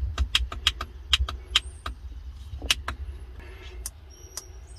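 Rapid clicking from the controls of a Radioddity CB-27 mini CB radio as it is stepped through its settings: about ten quick clicks in the first second and a half, then a few scattered ones, with a couple of short high tones near the end.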